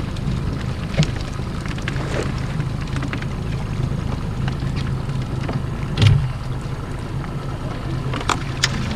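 A boat's engine running steadily at idle while a cast net's rope is hauled in by hand, with a few short knocks, the loudest about six seconds in.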